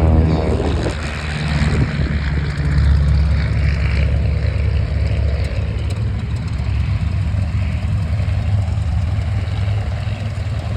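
Curtiss JN Jenny biplane's piston engine and propeller running steadily with a low drone as the aircraft taxis. The engine note drops slightly right at the start, then holds steady.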